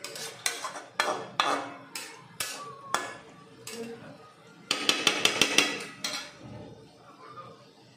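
Metal spatula scraping and knocking against a metal kadai while stir-frying cabbage and potatoes: sharp clinks about twice a second, then a burst of rapid scraping and clatter about five seconds in, dying down near the end.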